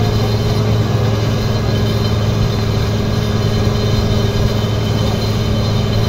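Asphalt paver's diesel engine running steadily as the machine lays asphalt: a constant low hum with a few steady tones above it.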